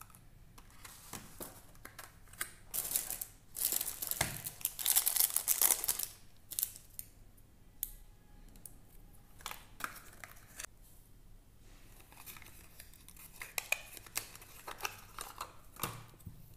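Clear plastic wrapping crinkling and tearing as it is pulled off a small cardboard box, with a dense stretch of rustling about three to six seconds in, then lighter crinkles and handling clicks.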